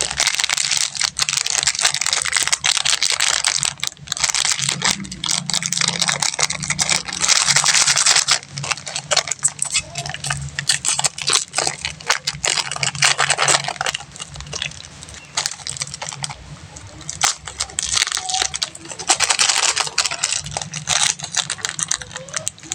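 Plastic candy wrappers being crinkled and torn open, a dense crackling rustle that comes in stretches of a few seconds with short lulls between.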